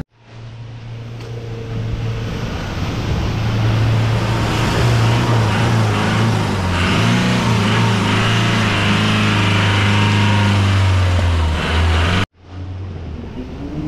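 A modified 4x4 jeep's engine running steadily at low revs as it drives through a shallow stream, with water splashing around the tyres. The sound cuts off suddenly near the end.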